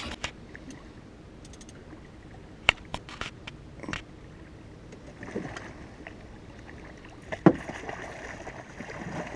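Water lapping and sloshing around a small metal boat, with a few sharp knocks about three seconds in. Near the end a louder splash as a hooked lake trout thrashes at the surface beside the boat.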